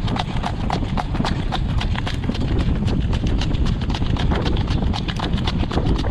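Harness horse trotting on a gravel road, pulling a sulky, its hooves striking in a quick, even rhythm of about four to five beats a second over a steady low rumble.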